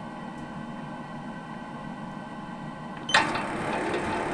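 Lathe turning slowly, winding spring wire onto a quarter-inch mandrel through a Hemingway spring winder, with a steady hum. About three seconds in, a much louder rough scraping noise starts suddenly and carries on.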